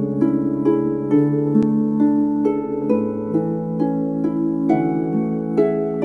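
Plucked ancient Greek lyre music: a slow melody of single plucked notes, about two a second, each fading out over long-held low notes.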